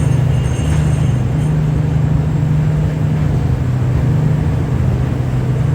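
Ship's engine droning steadily with a constant low hum and a rush of noise, unchanged throughout.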